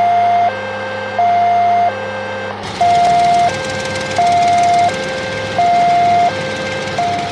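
Toy emergency vehicle's electronic two-tone siren sounding hi-lo, switching between a higher and a lower tone about every 0.7 seconds. A background hiss grows louder about two and a half seconds in.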